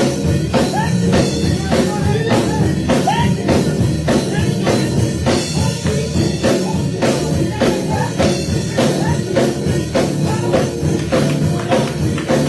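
Band music with a steady drum-kit beat over bass and guitar.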